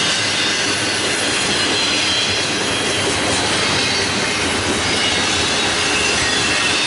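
Long double-stack intermodal freight train's container cars rolling past: a steady rumble of steel wheels on rail, with a faint high-pitched wheel squeal over it.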